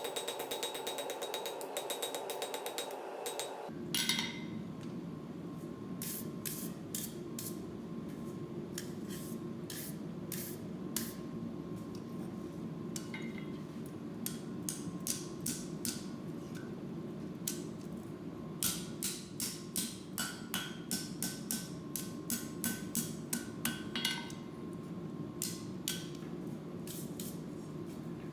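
Hand hammer striking hot steel on an anvil, in irregular groups of sharp ringing blows that come about two a second near the middle, over a steady low rumble. It opens with a few seconds of a fast, even clatter that stops abruptly.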